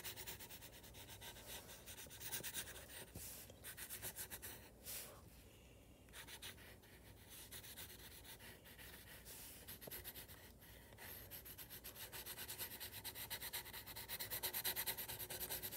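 Graphite pencil shading on paper: quick back-and-forth scratchy strokes as an area is filled in, easing off about five seconds in, then building up again toward the end.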